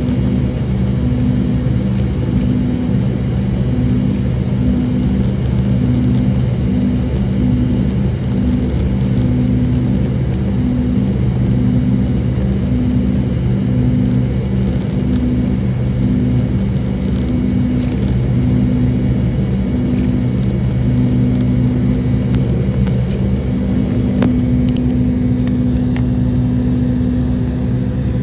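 Jet airliner cabin noise during the climb after takeoff: a steady engine and airflow drone with a low hum that pulses in a slow beat, settling into an even tone near the end.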